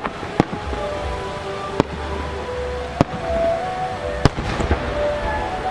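Sharp booms of large aerial firework shells, four reports about a second apart, the first and last the loudest, with a short crackle after the last, over background music.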